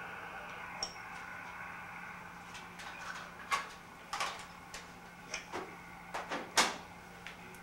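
Steady hum with a scatter of irregular sharp clicks and knocks: one about a second in, then a run of them in the second half, the loudest about a second before the end.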